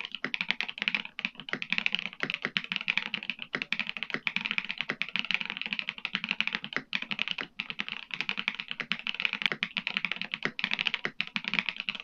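Continuous rapid typing on a ZOOM75 TIGA 75% mechanical keyboard with WS POM+ switches and WS mountain teal amber keycaps, a dense, unbroken run of clacking keystrokes.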